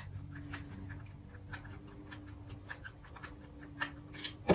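Light clicks, ticks and scratches of small metal carburetor parts and a screwdriver being handled while a carburetor is taken apart, over a faint steady hum; the clicks get louder near the end.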